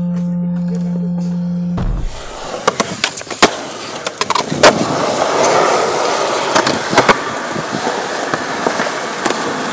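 A sustained guitar chord cuts off suddenly about two seconds in. Then skateboard wheels roll over asphalt, with repeated sharp clacks of the board hitting the pavement.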